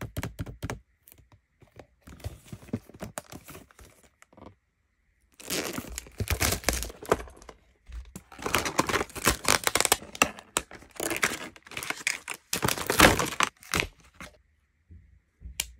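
Toy packaging being opened by hand: a cardboard box is pulled open and clear plastic packaging crinkles and tears, in stretches of crackling with short pauses between them.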